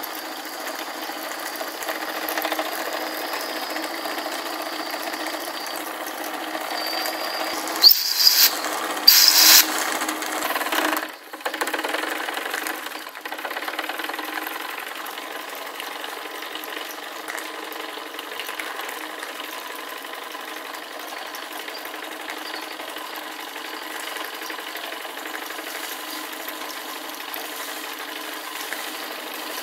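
Wilesco D16 toy steam engine running and driving a tin Bing bucket elevator by a belt: a steady, fast mechanical rattle from the engine and the elevator's buckets and pulleys. About eight and nine seconds in come two short, loud bursts of noise.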